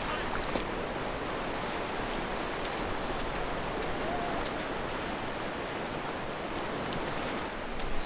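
Steady wash of ocean surf breaking and running up a shallow beach.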